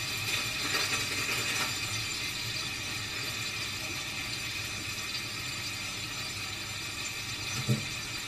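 Steady hiss from a lit gas stove burner under a pan of raw chicken, with light rustling in the first two seconds and a single knock near the end.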